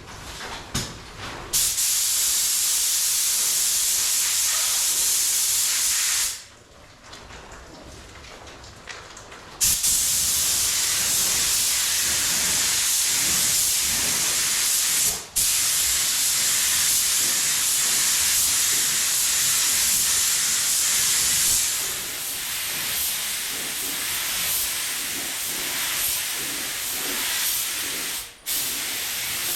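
Compressed-air paint spray gun hissing as clear coat is sprayed, in long steady passes. The hiss stops for a few seconds about a fifth of the way in, then cuts out briefly around halfway and again near the end.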